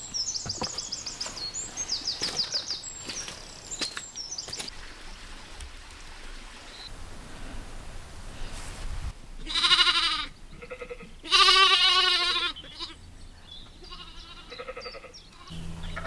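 Sheep bleating: one loud bleat about ten seconds in, then a longer, quavering bleat just after, with a few fainter bleats. Before that, a small bird sings high, rapid trills over footsteps.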